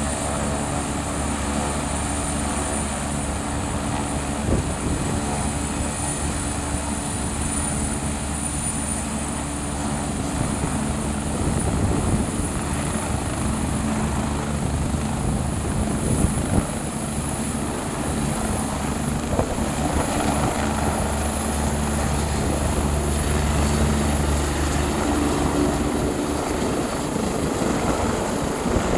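Helicopter running steadily: a low, even rotor beat over engine noise, with a thin high whine that creeps slightly up in pitch.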